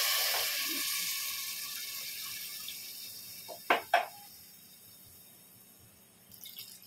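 Water just poured into a hot pressure cooker of fried rice and vegetables hissing and bubbling, dying away over the first few seconds. A little past the middle come two sharp knocks in quick succession.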